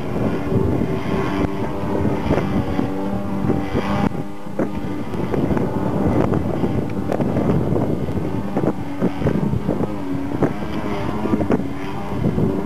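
Engine of a radio-controlled aerobatic model airplane running in flight, its pitch rising and falling as it manoeuvres, with wind buffeting the microphone.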